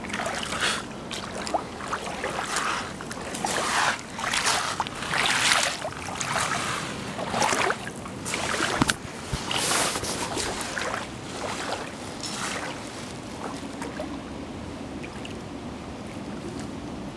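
Creek water running, with irregular splashing surges and a few sharp knocks through the first part, then a steadier rush.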